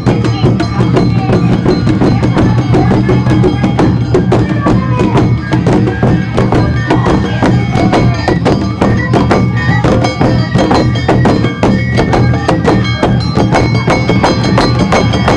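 Awa Odori festival band playing: drums, a clanging hand gong and a high flute, with rapid, dense strikes in a brisk steady rhythm.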